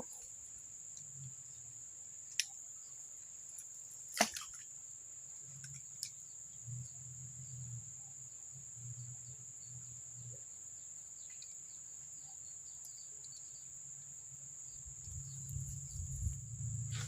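Steady high-pitched drone of insects, with a few faint sharp clicks about two, four and six seconds in.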